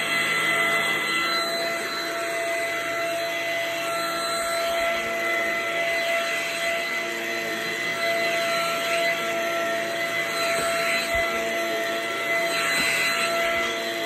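Cordless stick vacuum running steadily on carpet: a motor whine over a rush of air, rising and falling a little as the floor head is pushed back and forth.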